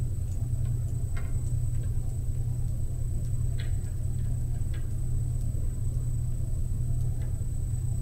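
Steady low background hum, with a few faint small clicks as fingers twist a plastic sleeve back onto the soldered wires of a switch jack.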